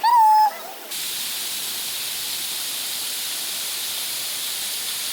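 Steady rushing hiss of running water, as from a waterfall or river rapids, starting abruptly about a second in after a brief high warbling call.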